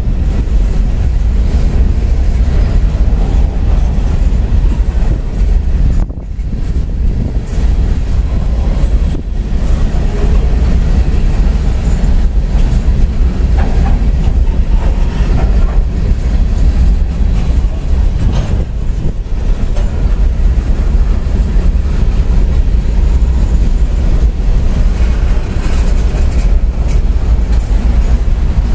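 Freight train of CSX open-top coal hopper cars rolling past, steel wheels on rail making a steady, loud rumble with some clatter.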